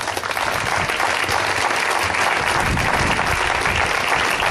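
Crowd applauding: the clapping thickens during the first second into dense, even applause that holds steady.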